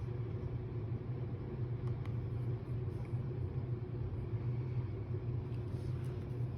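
A steady low hum, with a few faint small clicks about two and three seconds in.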